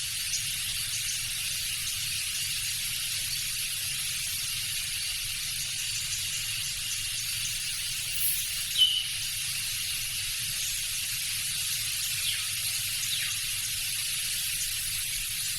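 Tropical jungle ambience: a dense, steady chorus of insects. A few short bird chirps and falling whistles come through, with one louder call about halfway through and more a few seconds later.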